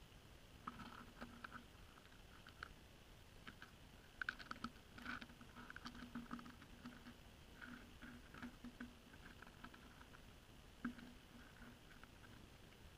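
Faint whirring and clicking of an ice-fishing rod's spinning reel cranked in short spells as line is brought in through the ice hole, with a few light clicks.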